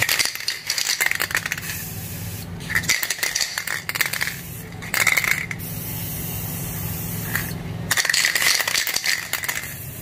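Aerosol can of black spray paint being shaken, its mixing ball rattling in several quick bouts, between stretches of spraying.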